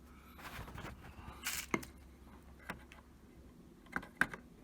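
Faint handling of a dishwasher's plastic control panel and circuit board: a few scattered light clicks and taps over a low hum.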